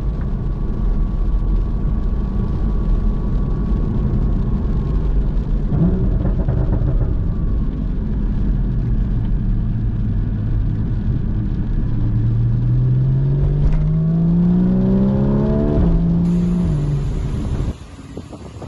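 Sports car engine and road rumble heard from inside the car. Near the end the engine note rises steadily in pitch for a few seconds as the car accelerates, holds briefly, then drops away.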